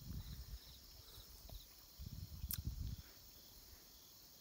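Crickets chirring steadily, with a few pulsed chirps in the first second or so. Low muffled rumbles come at the start and again about two seconds in, with a single sharp click in the middle.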